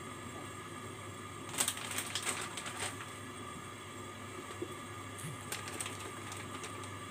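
Lidded stainless steel pot simmering on the stove over a steady hum. There are two short spells of rapid clicking and crackling, the stronger about a second and a half in and lasting about a second and a half, and a weaker one near six seconds.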